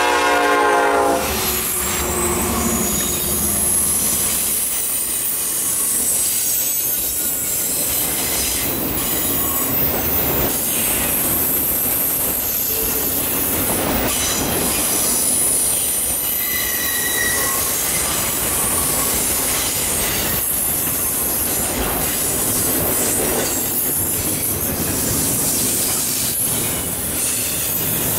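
A freight train passing close by. The lead locomotive's horn cuts off about a second in as the two GE Dash 9-40CW diesel locomotives go by. Then a long string of autorack cars and double-stack intermodal well cars rolls past with a continuous steel-wheel rumble, scattered wheel squeals and a clickety-clack over the rail joints.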